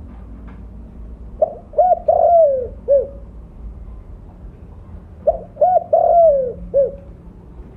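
Spotted dove cooing: two phrases, each of a few short coos, a longer coo that falls in pitch, and a short closing note, about four seconds apart.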